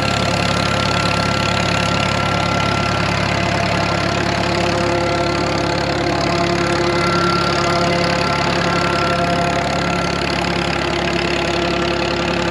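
Farmall M tractor's four-cylinder engine running steadily under load, purring as it belt-drives a pump draining a flooded ditch through its belt pulley and long flat belt.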